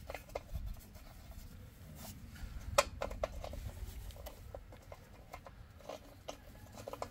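Faint small clicks and scraping of a replacement metal fuel tap being turned by hand into the thread under a rotary tiller's fuel tank, with one sharper click about three seconds in.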